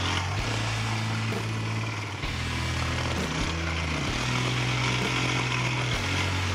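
Quad bike (ATV) engine running under throttle, heard from a camera on the riding quad. The throttle lifts briefly about two seconds in, then the revs climb again, with further changes in engine note near the end.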